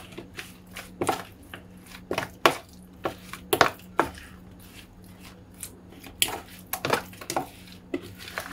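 A metal fork clicking and scraping irregularly against a plastic bowl while sardines are mixed through a wet paste of flour, spices and lemon juice. A faint steady low hum runs underneath.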